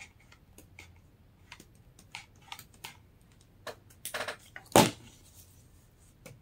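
Hot-glue crafting with faux fur: scattered light clicks and taps from the glue gun and hands working the basket, a short rustle about four seconds in, then one sharp knock just after, the loudest sound.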